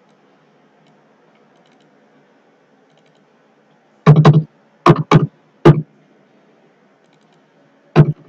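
Computer keyboard keys struck hard and close to the microphone: about five sharp keystrokes in a second and a half, then about three more near the end, as numbers are typed in.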